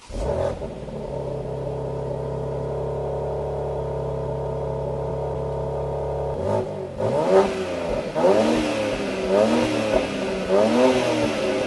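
BMW X3 engine idling steadily, then revved several times from about six seconds in, its pitch rising and falling with each blip.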